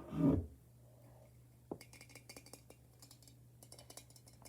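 Faint, irregular light clicks and taps, like small objects being handled or tapped close to the microphone, over a low steady hum. A short louder bump or rustle comes right at the start.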